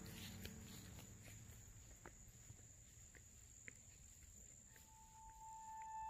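Near silence: faint crickets trilling steadily, with a few soft clicks. A single held tone comes in near the end.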